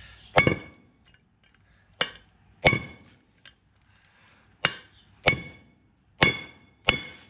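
Hammer blows on a cut-down steel socket seated on a wheel nut, driving a wheel stud out of a Toyota Land Cruiser FJ40 front hub. Seven sharp metallic strikes, each with a short ring; after the first they come roughly in pairs.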